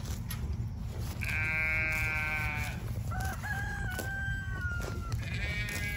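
A rooster crowing: three drawn-out calls of a second or two each, the middle one rising and then holding a steady pitch. Short, irregular tearing clicks of a cow cropping grass come through close by, over a steady low rumble.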